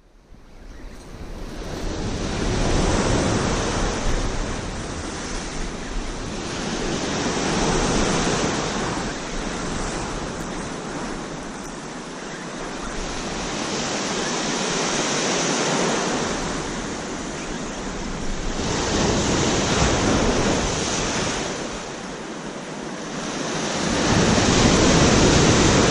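Ocean surf breaking and washing over black lava rocks along the shore, swelling and easing in repeated surges about every five seconds. It fades in over the first two seconds.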